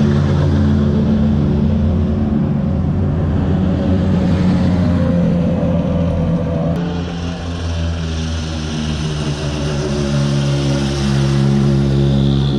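World Rally Car engines running steadily as the cars drive through at road speed, an even, humming engine note. About seven seconds in the pitch changes as another car takes over.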